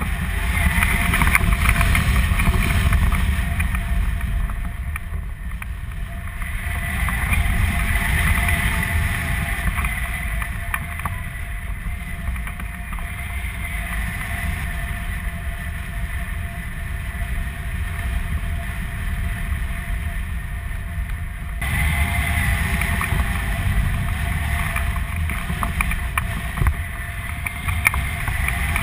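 Airflow buffeting the microphone of a camera mounted on a hang glider in flight: a steady, gusting wind rush with a high, wavering whistle on top of it.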